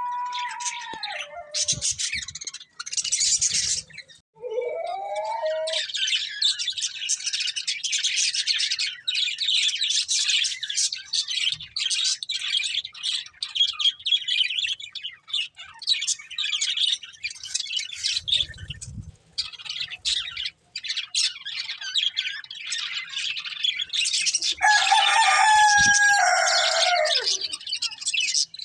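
Budgerigars chirping and warbling in a steady, busy stream of high twittering. A few lower, pitched calls stand out: one at the start, a short rising one about five seconds in, and a louder, longer one near the end.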